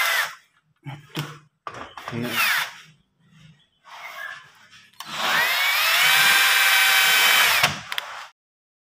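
Cordless drill/driver driving a screw into a lock cylinder's escutcheon plate on a wooden door. Its motor whine rises as it spins up about five seconds in, then holds steady for nearly three seconds before stopping. Earlier there are a few short knocks and handling sounds.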